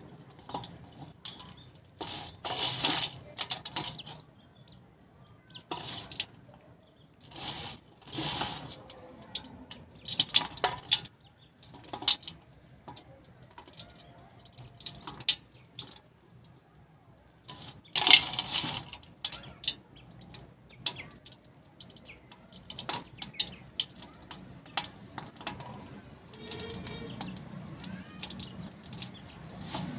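Dry red clay lumps crumbled in the hand and sifted through the fingers onto a pile of clay crumbs: irregular crackling, crumbling bursts with quieter gaps between, turning into a steadier rustle near the end.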